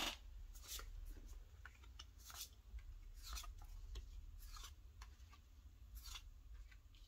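Tarot cards being dealt one at a time onto a cloth-covered table: a faint, irregular series of soft slides and light taps, about one every second.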